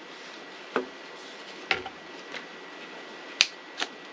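Five light, irregularly spaced clicks and knocks from handling the cordless stick vacuum's swivelling floor head and wand as it is tilted through its angles.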